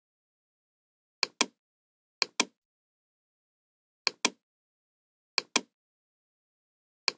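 Computer mouse clicking: sharp clicks in quick pairs, five pairs at uneven intervals, with dead silence between them.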